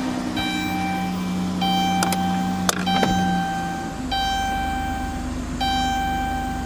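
Minivan's electronic warning chime sounding over and over, one held tone roughly every second and a half, over a steady low hum from the running vehicle. A few sharp clicks come about two to three seconds in.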